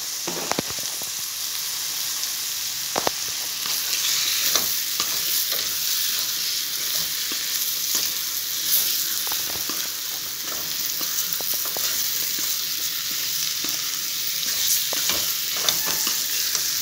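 Chicken pieces sizzling in hot oil and onion-tomato masala in a kadai as they are sautéed. A wooden spatula stirs them and scrapes and knocks against the pan now and then.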